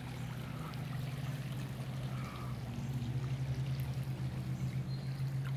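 Floodwater from an overflowing creek flowing steadily, a continuous rush of water.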